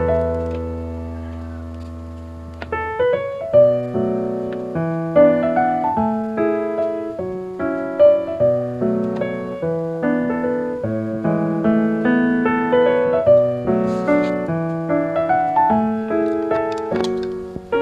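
Piano music: a held chord fading away for about the first two and a half seconds, then a steady melody of single notes and chords.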